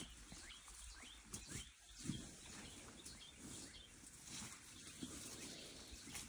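Quiet forest background: faint bird chirps with a few soft rustles and snaps of undergrowth.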